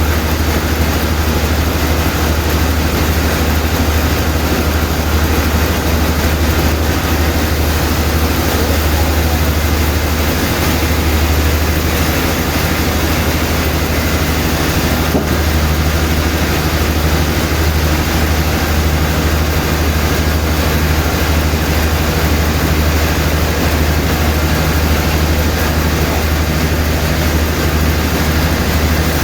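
Sawmill machinery running steadily: a loud, unchanging low drone from a heavy engine or motor.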